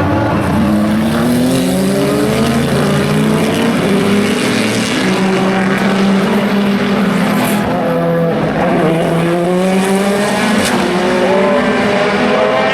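Racing car engines accelerating hard, several at once, each rising in pitch through a gear and dropping back at the upshift, over and over.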